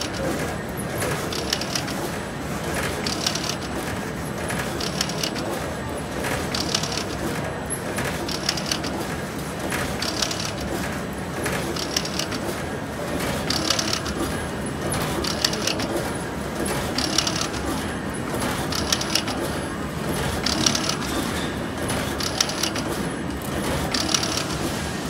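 Hexagonal wire netting machine running: a steady mechanical clatter, with a bright metallic jingle repeating about every second and a half to two seconds as the machine twists the wires and the mesh advances over the toothed roller.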